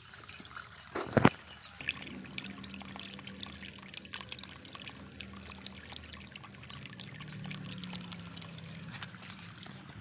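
Water pouring out of the end of a drain hose and splashing into a puddle, with a steady trickling patter, as a fish tank is emptied. A single loud thump about a second in.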